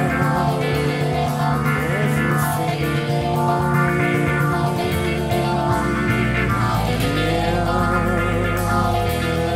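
Live rock performance: a male lead singer holds long sung notes over the full band. About halfway through, the bass drops to a deep sustained note.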